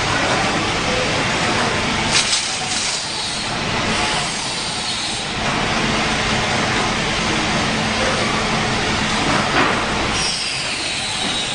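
Automatic transformer soldering line machine running: a steady mechanical clatter from its conveyor and moving heads, with a few sharp clicks about two seconds in and again near the end.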